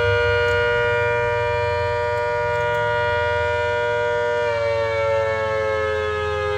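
Hurricane rotating outdoor warning siren sounding a loud, steady multi-note tone. About four and a half seconds in, the pitch starts to slide down as the siren winds down.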